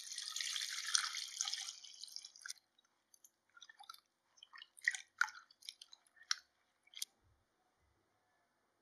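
Water poured from above into a stainless steel bowl of thin raw potato slices for about two and a half seconds, then a hand swishing and turning the slices in the water, with scattered small splashes and clicks that stop about seven seconds in.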